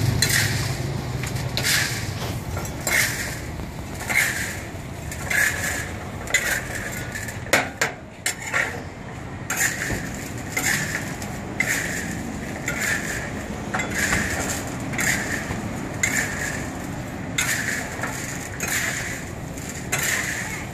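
Chestnuts and small black pebbles stir-fried in a large wok with a metal spatula: a gritty rattling scrape about once a second as the spatula turns the pebbles over, with a low steady hum underneath.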